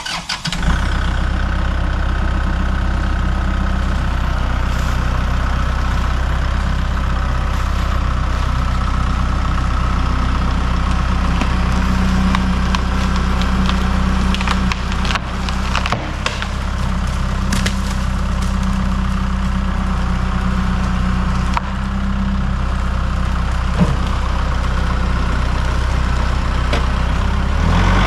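A heavy engine running steadily at a low, even pitch, with a few sharp clicks and knocks around the middle.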